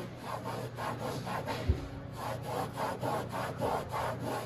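Rhythmic back-and-forth scrubbing on a textured non-skid fiberglass boat deck, about three to four strokes a second, working softened glue loose with lighter fluid. One sharp knock sounds about a second and a half in.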